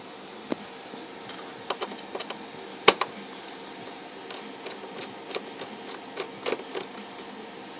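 Irregular clicks and light taps of small hard objects being handled, with one sharper knock about three seconds in, over a steady hiss.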